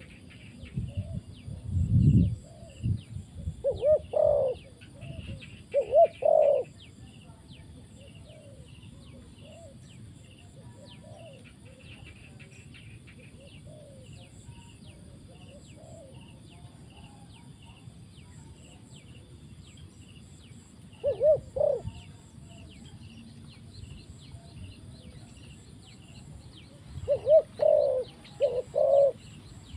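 Spotted dove cooing in short phrases of two or three notes, heard four times with long gaps between. A low rumble comes near the start, with faint, rapid high chirping in the background.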